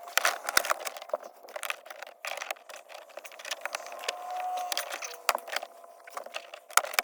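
Irregular clicks, knocks and light rattles of plastic interior trim and tools being handled.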